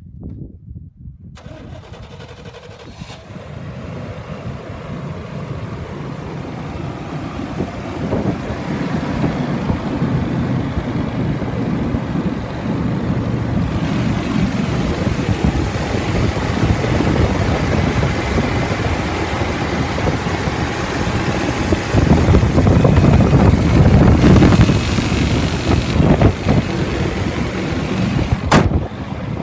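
1990 GMC Sierra K1500's 5.7-litre 350 V8 gasoline engine idling steadily. It grows gradually louder and is loudest about three-quarters of the way through.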